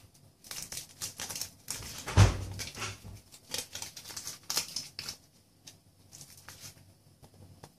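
Foil wrapper of a Kinder Surprise egg crinkling and tearing as it is peeled off by hand, in quick irregular crackles that thin out after about five seconds. About two seconds in there is a single thump, the loudest sound.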